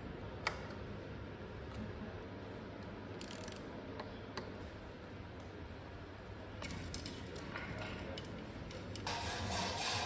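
Small metal clicks and taps of hand tools on bicycle parts, with one sharp click about half a second in and a few fainter ones later, over a low steady hum.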